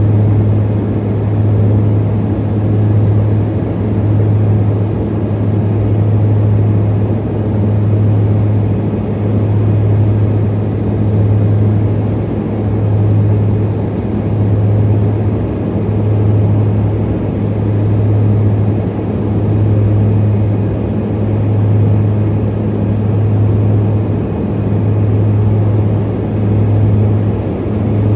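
Harbin Y12E's twin turboprop engines and propellers droning inside the cabin during descent: a steady low hum over rushing air noise, swelling and fading in slow pulses about every two seconds.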